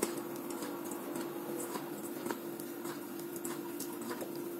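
Hand squishing and kneading a soft mixture of soaked sago and mashed potato in a stainless steel bowl, with faint scattered light ticks, over a steady hum.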